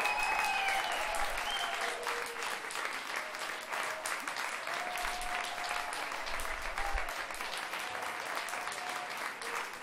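Audience applauding, with a few voices calling out over the clapping; the applause eases slightly toward the end.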